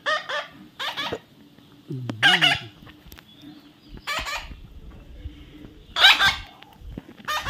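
Baby parrot giving a series of short, harsh squawks, about six calls spaced a second or two apart.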